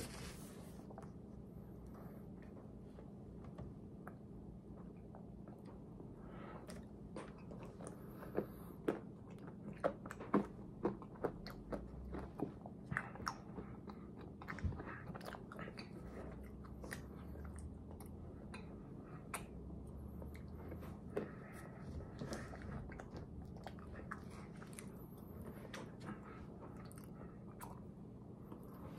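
A person chewing and biting food, with a run of sharp crunches and clicks through the first half, then sparser ones, over a steady low hum.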